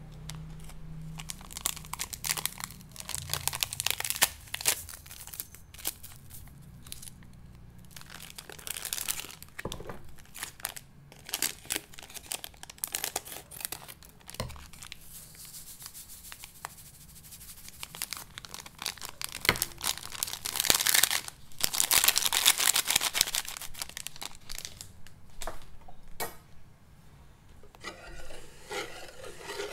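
Plastic sachet of instant jelly powder being crinkled and torn open, with irregular crackling and a longer loud tearing stretch past the middle. Near the end a wire whisk begins stirring the liquid in a metal pot.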